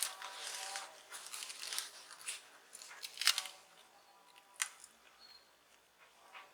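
Plastic scraping and sharp clicks as a guitar plectrum is worked along the seam of a smartphone's glued back cover to pry it loose. There is rasping scraping for the first couple of seconds, then two sharp clicks about three seconds in and a second later.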